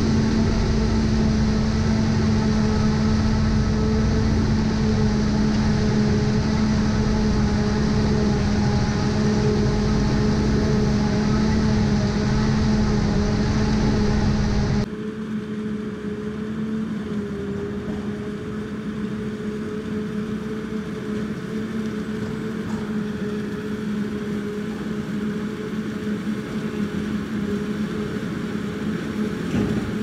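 Self-propelled forage harvester running steadily under load while chopping standing corn for silage, a continuous mechanical drone with a steady low hum. The sound drops suddenly to a quieter level about halfway through.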